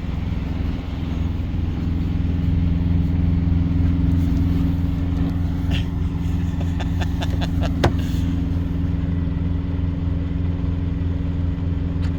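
Big-rig diesel engine idling with a steady low hum. A run of light clicks and one sharp click come about seven to eight seconds in.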